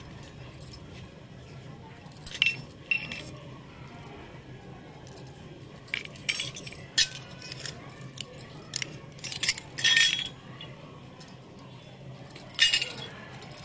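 Miniature stainless-steel toy dishes and lids clinking as they are set down and picked up, several separate short ringing clinks with pauses between them.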